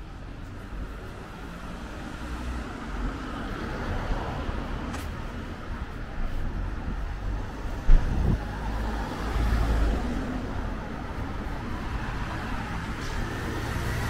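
Road traffic on a city street: vehicles passing close by, with a steady low rumble that grows louder. A sharp low thump comes about eight seconds in.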